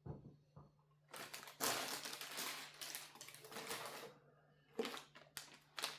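Packaging being handled: a dense rustling and crinkling for a few seconds, followed by a few sharp clicks near the end.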